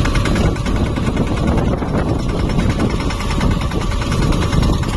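Mahindra Yuvraj 215 tractor's single-cylinder diesel engine running steadily.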